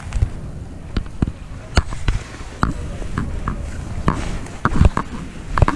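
Footsteps crunching through frost-covered grass and brush, with twigs snapping: uneven knocks and crunches, about two a second.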